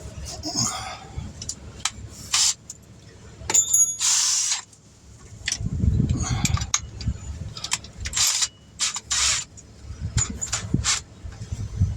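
Handling of tire-repair tools and small metal parts: irregular clicks, knocks and clatter, with a ringing metallic clink about three and a half seconds in and a short burst of hiss just after it.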